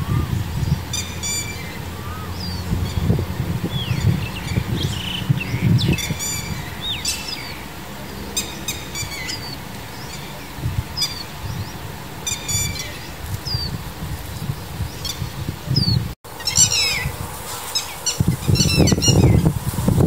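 Scattered short bird chirps and calls over a low rumble. After a cut about 16 seconds in comes a denser run of loud, repeated calls: a red-wattled lapwing calling for its chicks.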